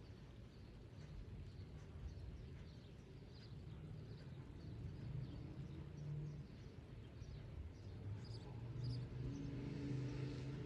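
Outdoor ambience: a distant engine's low hum that grows stronger over the second half, over a rumbling background, with scattered short high chirps.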